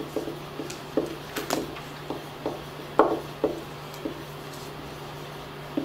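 Marker writing on a whiteboard: about nine short, irregular strokes and taps over the first three and a half seconds as words are written, then it stops.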